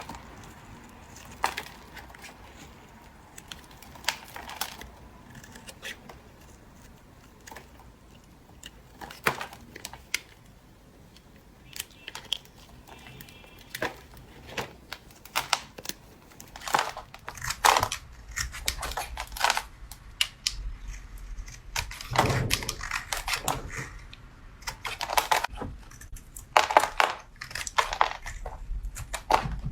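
A knife cutting and scraping through a bar of soap, with crisp crunching cuts. Sparse at first, then busier and louder in the second half.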